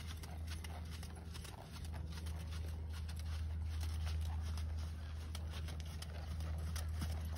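Hoofbeats of a ridden horse moving around a soft sand-and-dirt arena, a run of faint dull knocks over a steady low rumble.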